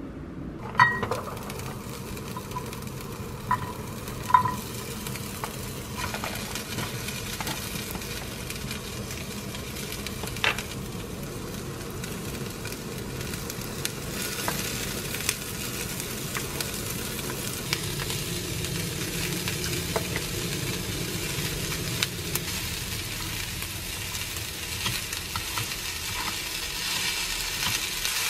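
Chicken-breast kimchi fried rice sizzling in a frying pan as it is stirred, with a utensil knocking against the pan a few times in the first seconds and once more about ten seconds in. The sizzling grows a little louder toward the end.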